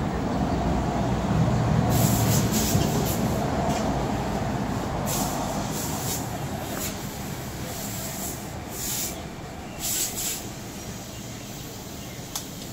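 Steady street-traffic noise, with a vehicle's rumble swelling in the first few seconds and then fading. Several short rustles come over it, the loudest about nine and ten seconds in, with a single click near the end.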